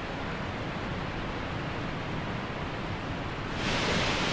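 Steady rushing roar of a nearby waterfall. About three and a half seconds in it gets louder and hissier.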